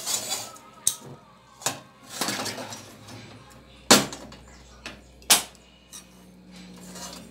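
Popped popcorn rustling as an enamel pot of it is shaken, and a metal spoon scraping and clinking in a small frying pan of granulated sugar heating to melt into caramel, with a few sharp knocks, the loudest about four seconds in.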